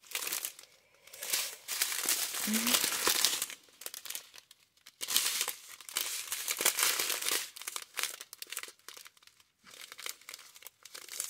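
Small plastic bags of resin diamond-painting drills crinkling as they are handled, in several irregular bursts of rustling that are louder in the first seven seconds or so and softer after.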